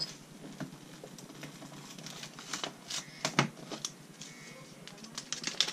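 A paper note being handled, rustling and crinkling, with scattered light taps and crackles that cluster near the end.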